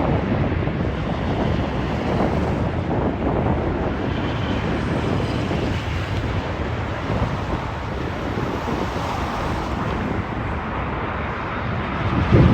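Steady wind buffeting the microphone, mixed with the jet rumble of an arriving Airbus A330-300 and a faint high engine whine.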